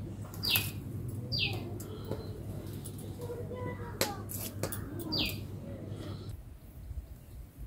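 Moringa leaves being stripped by hand from their stalks: rustling of leaves with a few sharp snaps of stems. A bird gives short downward-sweeping chirps three times, and a low steady hum underneath stops about six seconds in.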